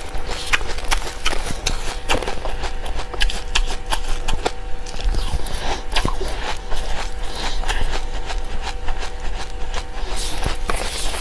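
Seeds being eaten: many small, irregular crisp clicks and crunches over a steady low rumble.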